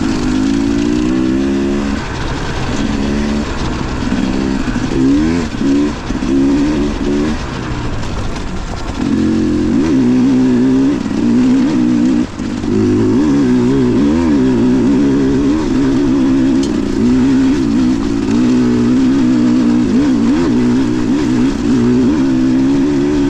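Dirt bike engine running with the throttle worked on and off: its pitch rises and falls in short pulses for the first several seconds, then holds steadier from about nine seconds in, over a steady rushing noise.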